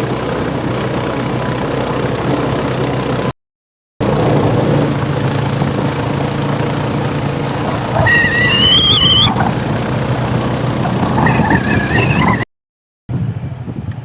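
A boat engine running steadily under way, with two high, wavering calls over it in the second half. The sound drops out completely twice, briefly.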